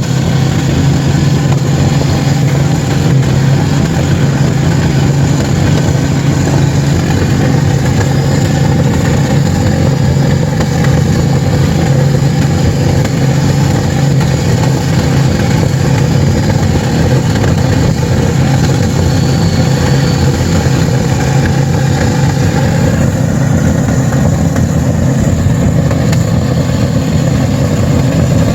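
Several car engines running together, held at high revs with a steady, loud drone. They are being run flat out on purpose to make them fail.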